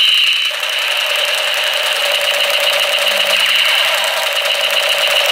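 Battery-powered toy MP5 gun's electronic sound effect: a steady, high-pitched buzzing tone with a fast rattling flutter, thickening about half a second in.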